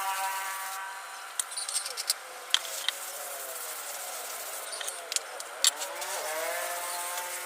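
Small motorcycle engine running and being revved: its pitch drops about a second in, then climbs again near the end, with a few sharp clicks in between.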